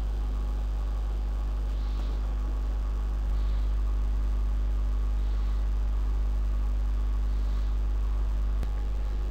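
Steady low electrical mains hum with a light hiss. It grows slightly louder about three seconds in and drops back near the end.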